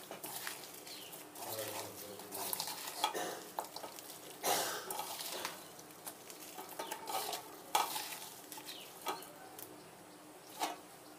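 Sliced spiny gourd being tossed and mixed by hand with turmeric and salt in a stainless steel bowl: irregular wet rustling and squishing, with a few sharper clicks of pieces against the bowl.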